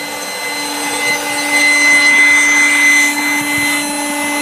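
Electric air pump running steadily, inflating an inflatable boat: a steady hum with high whines above it, swelling louder for a couple of seconds in the middle.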